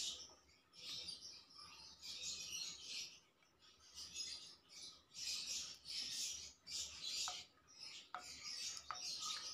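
Birds chirping in short repeated bursts, about one a second, with a few faint light clicks near the end.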